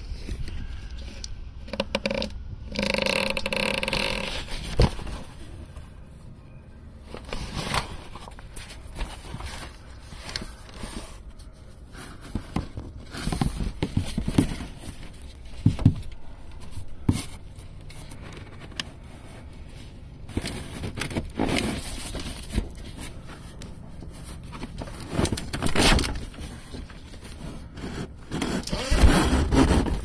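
Hands handling wiring and tape: uneven scraping and rustling, with scattered clicks and knocks.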